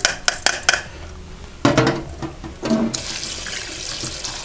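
A mesh strainer knocks against a stainless steel bowl several times as washed sushi rice is tipped back in. Then a kitchen tap runs water into the bowl of rice from about three seconds in, a steady splashing hiss for rinsing the rice again.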